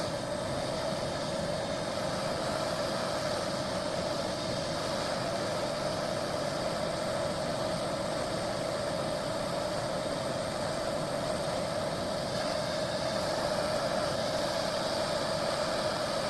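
Handheld torch flame running steadily, heating a rust-seized brake stud to free it.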